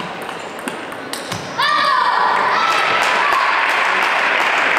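Table tennis ball clicking off bats and table in a rally. About a second and a half in, a high-pitched voice shouts and spectators break into sustained clapping and cheering as the point ends.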